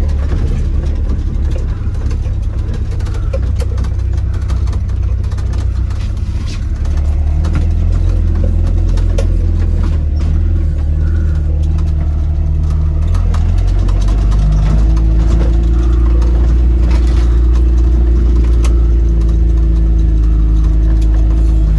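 Jeep engine running while driving on a dirt road, heard from on board: a low, steady drone that grows louder about seven seconds in and shifts pitch again partway through as the speed changes.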